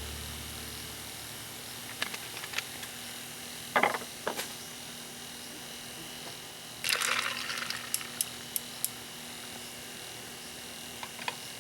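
Scattered small clicks and knocks of objects being handled, with a short rustling clatter about seven seconds in and a few single ticks after it, over a faint steady hum.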